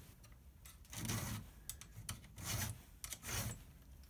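Hand file rasping across a chainsaw chain in three strokes with small clicks between, taking down the rakers (depth gauges) through a raker gauge.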